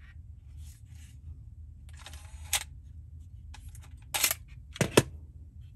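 Sony MZ-1 MiniDisc recorder ejecting a MiniDisc: a short mechanical clatter about two seconds in, then a brief scrape and two sharp clicks near the end as the disc comes out of the slot.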